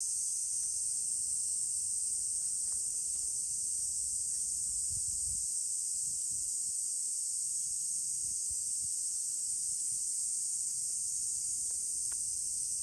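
A steady, high-pitched chorus of cicadas droning without a break in summer woodland trees.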